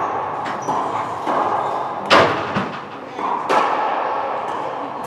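Racquetball rally: a string of sharp smacks of racquet on ball and ball against the court walls, each ringing in the enclosed hard-walled court, the loudest about two seconds in.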